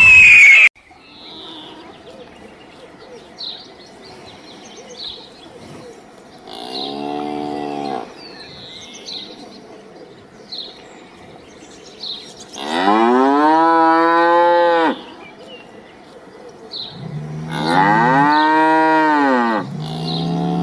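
A cow mooing four times: a short moo, a long moo of about two seconds, then two more close together near the end, each rising and then falling in pitch. Faint high chirps come and go in the background, and a brief loud burst is heard at the very start.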